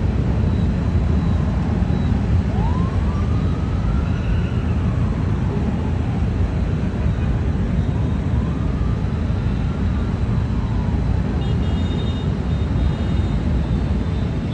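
Steady low rumble of a large group of motorcycles and city traffic, with a faint siren wailing up and down twice.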